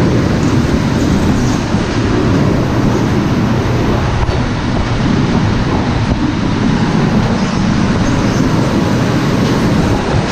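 Better Built potato seed cutter running: a loud, steady mechanical rattle and rumble as seed potatoes tumble through it to be sized and cut.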